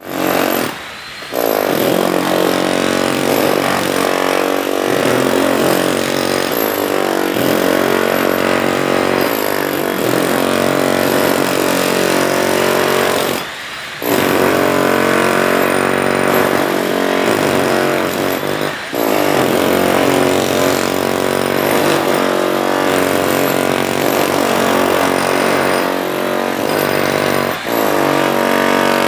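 Drill running continuously, its motor pitch wavering; it eases off briefly about a second in and again about halfway through, then spins back up.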